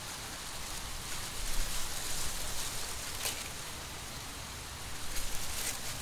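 Wind rustling the dry leaves and stalks of a mature corn field, swelling in gusts about a second and a half in and again near the end, with a few brief crackles of leaves.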